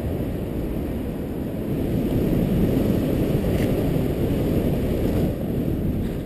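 Wind rushing over the camera's microphone during a parachute descent under an open canopy: a steady, low rush of air.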